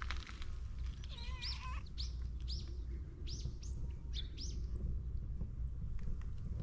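A small bird chirping, a quick series of short rising-and-falling chirps about twice a second that opens with one warbled call and stops about two-thirds of the way through, over a steady low rumble.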